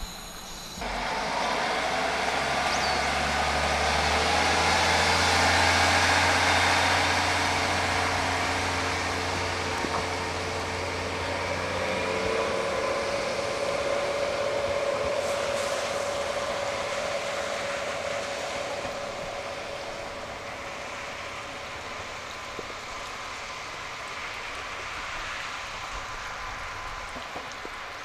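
KiHa 40 diesel railcar going by: its engine drone builds to loudest about six seconds in, then cuts out around twelve seconds in, leaving a steady whine and rail noise that slowly fade as the car moves off.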